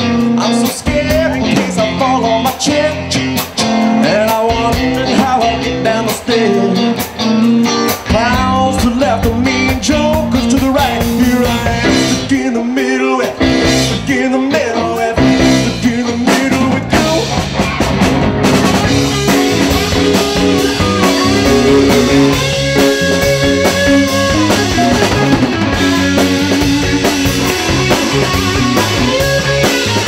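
A live band playing a song: a man singing over electric guitar and drum kit.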